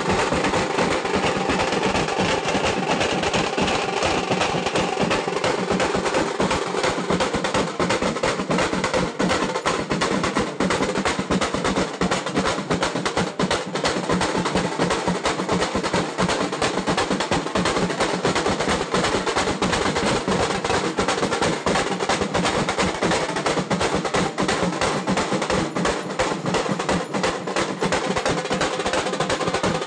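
Music with fast, continuous drumming, a rapid rolling beat with sharp wood-block-like clicks that keeps going without a break.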